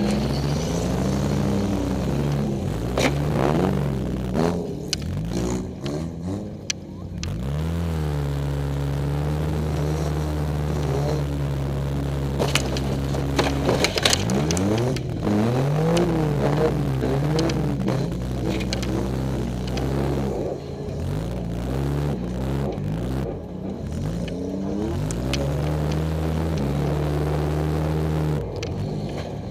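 Demolition derby car's engine heard from inside its cabin, revving up and dropping back again and again as the car drives forward and reverses. A few sharp bangs cut in about 3, 7 and 14 seconds in.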